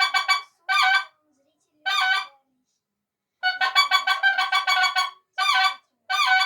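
Mouth-blown reed duck call sounded in quacking sequences: a fast run of repeated quacks, two short groups of calls, then a longer fast run about three and a half seconds in, followed by two more short groups.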